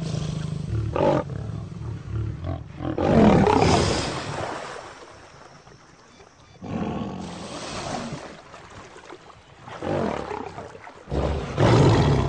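Male lion growling and roaring in several loud bursts, with a quieter stretch around the middle.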